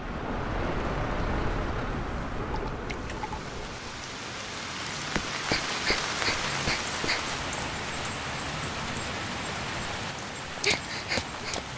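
Rain falling steadily as an even hiss. From about five seconds in, a quick run of sharp taps comes through, about two or three a second, and a few more come near the end.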